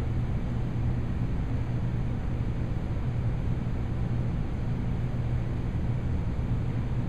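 A steady low hum under an even rush of background noise, with no change in level.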